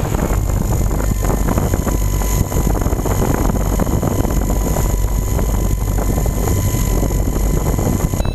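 Multirotor drone running its motors while resting on the ground: a steady electric-motor whine over the hum of the spinning propellers, with the prop wash rumbling on the onboard camera's microphone.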